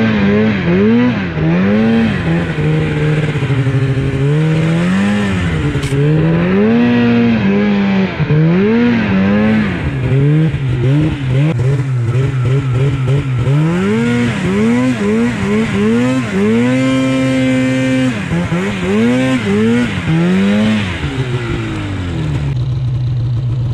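Mountain snowmobile's two-stroke engine revving up and down again and again as the throttle is worked through deep powder. It holds a steady high pitch for a couple of seconds about two-thirds through and drops back near the end.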